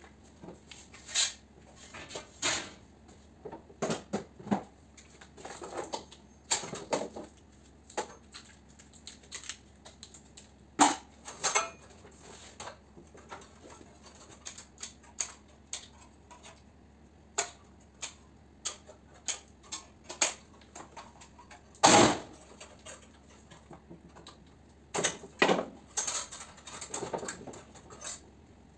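Irregular clicks, taps and knocks of hands working on a fan coil unit's sheet-metal frame and wiring as it is stripped for scrap, with the loudest knock about two-thirds of the way through.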